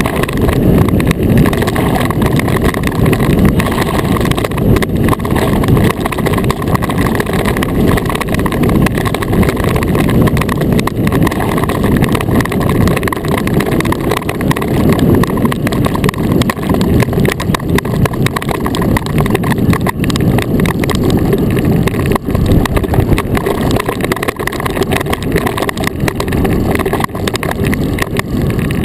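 Steady loud rumble and hiss of a sailing iceboat's runners skating over clear black lake ice, carried through the hull to a camera mounted on the boat.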